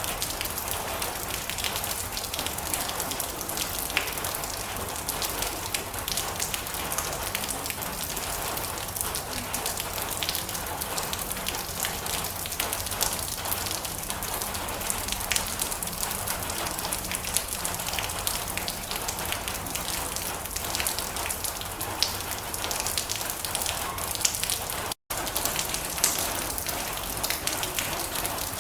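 Heavy rain drumming steadily on a metal roof: a dense hiss of many fine drop taps. It cuts out for a split second near the end.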